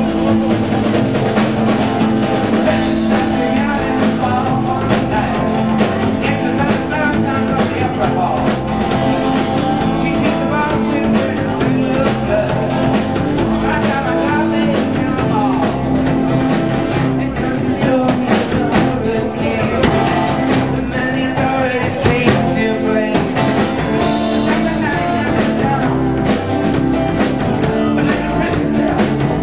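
Live rock band playing, with drum kit, guitars and a singing voice.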